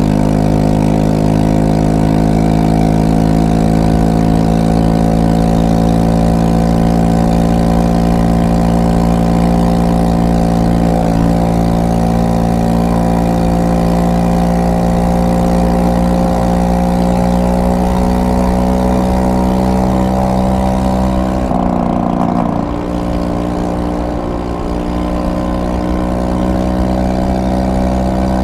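Amiga Jax 150cc scooter engine running under way, a steady drone whose pitch slowly creeps upward. About three quarters of the way through, the note drops and falls in pitch for a few seconds, then picks up again.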